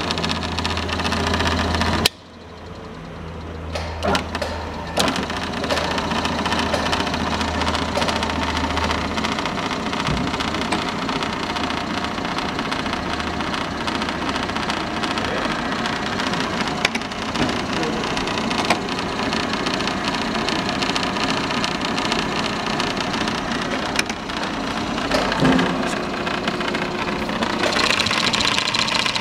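Ashina AFD-360 automatic-feed bench drill press running on test, its motor and belt drive making a steady mechanical running noise. About two seconds in there is a click and the sound drops sharply, then builds back up over the next few seconds.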